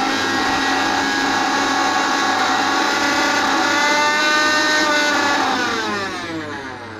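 Bajaj Glory 500-watt mixer grinder running at full speed with a steady high whine, then switched off about five and a half seconds in and spinning down, its pitch falling away.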